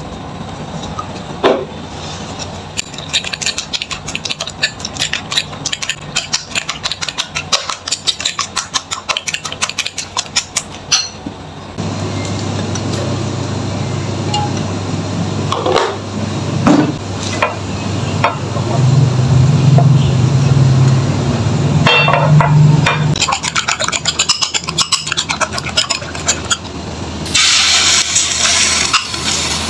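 Kitchen food preparation: a long run of rapid clinking strokes of a utensil in a bowl, then a steady low hum with scattered knocks, and near the end a short burst of hissing sizzle.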